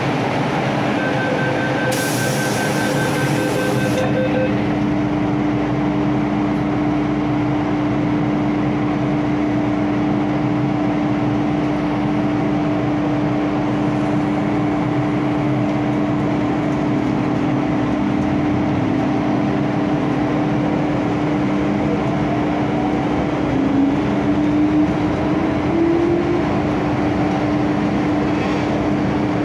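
MTR Island Line M-Train running underground, with steady rail and running noise and a constant humming tone from the traction equipment. A high hiss sounds for about two seconds near the start and cuts off sharply, and a tone rises slightly about three quarters of the way through.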